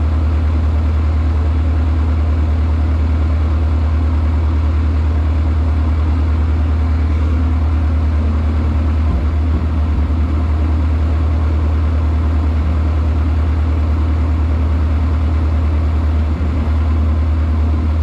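Tractor engine idling steadily, a constant low drone that does not change.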